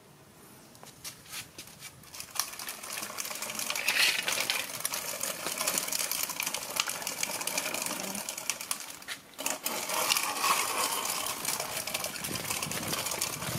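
Plastic toy truck rolling over a rough concrete floor as it is pulled on a string, its wheels and body giving a dense rattling clatter. The clatter starts about two seconds in and breaks off briefly about two-thirds of the way through.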